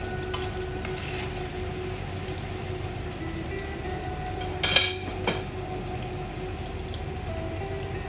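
Panko-coated sushi pieces frying in oil over medium heat, a steady sizzle and crackle. A little past halfway there is a loud sharp clatter, with a smaller knock about half a second later.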